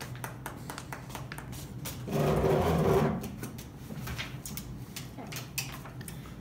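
A few people clapping, with scattered, irregular claps. A voice calls out briefly about two seconds in.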